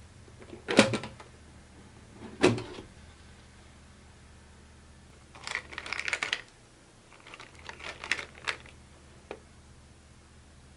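Two sharp knocks as a galvanized metal storage tin is handled and its lid taken off, then plastic and stainless steel cookie cutters clattering and clinking in bursts as they are rummaged through.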